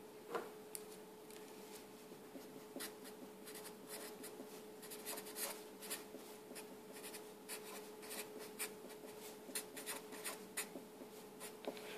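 Felt-tip marker writing on paper: faint, quick scratches and taps of the pen strokes, over a faint steady hum.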